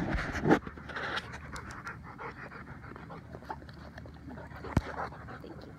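A Plott hound-type dog panting close to the microphone in quick, even breaths. A loud scuffle of handling noise in the first half second and a single sharp knock near the end.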